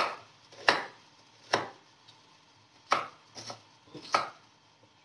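Chef's knife chopping small red onions on a wooden cutting board: sharp, separate knocks of the blade on the board at an unhurried, uneven pace, with a few lighter taps between them.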